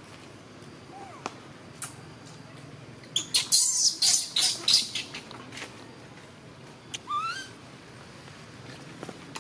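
Infant macaque squealing in a rapid run of shrill, harsh bursts from about three to five seconds in, then one short squeak that rises in pitch about seven seconds in, while a juvenile handles it.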